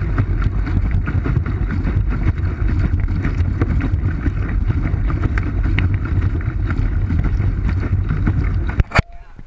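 Wind buffeting the pedal boat's GoPro microphone in a low, steady rumble, with water splashing against the hull. Near the end it stops abruptly with a sharp knock.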